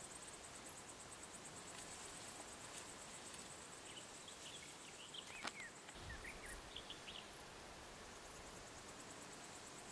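Faint forest ambience at dusk: insects chirring steadily in a fast, high-pitched pulse, with a few short bird chirps in the middle and a single sharp click about five and a half seconds in.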